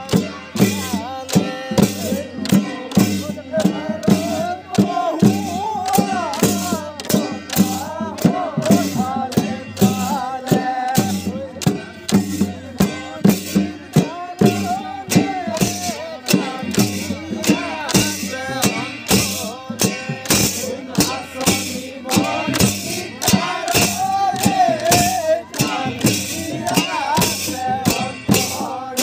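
Music with a steady percussion beat and a wavering melody line above it.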